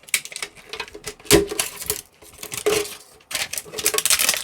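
A small metal Pokémon card tin being handled and opened: a few separate knocks and clinks, the loudest about a second and a half in, then a dense crinkling of packaging from just past three seconds in.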